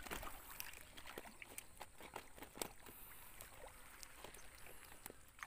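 Faint sloshing of muddy pond water with scattered small splashes as a person wades and gropes through it by hand.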